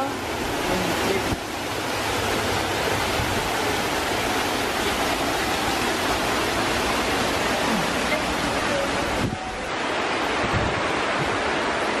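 Waterfall pouring, a steady rush of water that dips briefly about nine seconds in.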